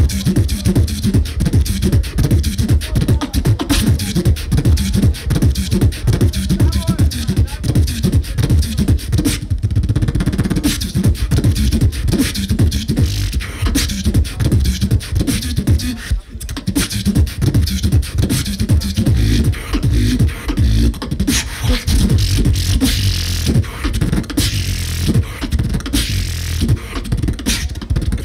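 Solo beatboxer performing live into a handheld microphone through a stage PA: a fast, continuous stream of deep bass kicks with sharp snare and click sounds on top, with a brief break about sixteen seconds in.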